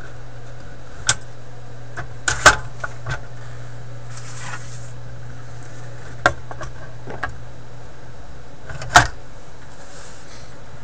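Knocks and clicks of a record being handled and set onto the Electrohome 601 record player's turntable, over the steady low hum of its tube amplifier. There is a loud cluster of knocks about two and a half seconds in, a smaller one a little after six seconds, and the loudest single knock near the end.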